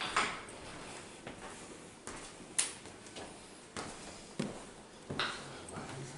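A wooden door knocking as it is pushed open, then a series of irregular knocks and footfalls on bare wooden floorboards in a room with some echo.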